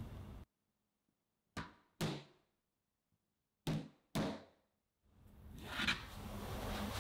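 Batter-filled round metal cake pans knocked down on a countertop: two sharp knocks about a second and a half in, then two more about two seconds later, each dying away in a short ring.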